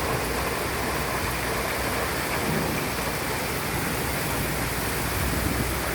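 Steady rain pouring down during a thunderstorm.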